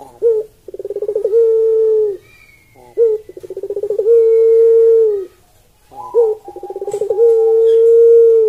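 Barbary dove (ringneck dove, puter pelung) cooing three times. Each coo starts with a short note, runs into a fast rolling stutter, and ends in a long, steady held note.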